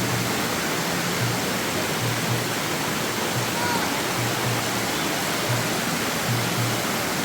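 Steady rushing of a waterfall, with soft background music and its low notes repeating under it.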